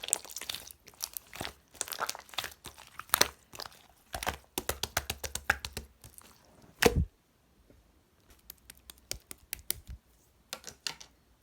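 Slime being squished and stretched by hand, making dense crackling and popping clicks. A louder pop comes about seven seconds in, then the clicks thin out near the end.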